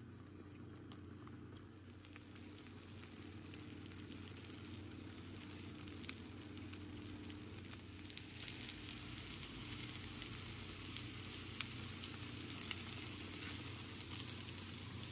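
Eggs and spinach frying in a nonstick pan: a soft, steady sizzle with scattered small pops and crackles, growing a little louder in the second half.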